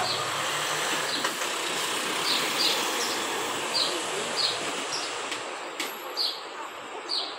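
Street traffic noise with a vehicle's low engine hum that fades out about halfway, while a bird gives short, high, falling chirps every half-second to a second.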